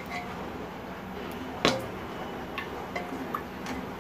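Metal spoon knocking and clinking against the inside of a pressure cooker as pieces of boiled mutton are scooped out of the stock: one loud knock about a second and a half in, then several light clinks.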